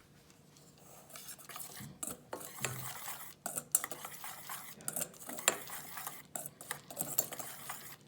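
A spoon stirring and scraping around a bowl, mixing dry chickpea flour, rice flour and spices, with sharp clinks against the bowl. The stirring starts about a second in.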